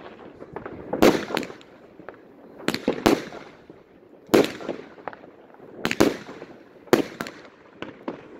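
Consumer fireworks battery (cake) firing shot after shot into the sky: about seven sharp bangs at uneven spacing of roughly a second, each followed by a short trailing crackle.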